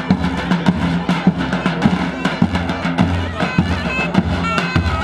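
Folk dance music played outdoors: a davul bass drum beating a steady rhythm under a wind instrument holding a wavering, piping melody.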